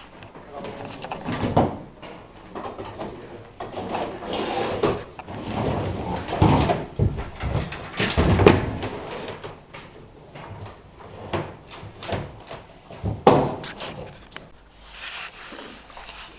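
Irregular knocks, bumps and scraping, as of objects being handled and moved about.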